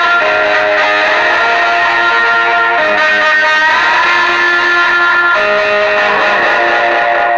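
Electric guitar played with a slide through an amplifier: held notes and chords that change every couple of seconds, with glides between pitches. The player says the chord did not come out as the chord he played.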